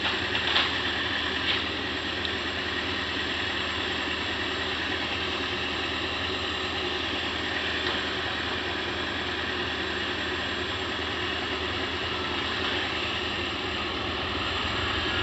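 Kobelco hydraulic excavator's diesel engine running steadily at low revs, with a few faint clicks in the first second or so.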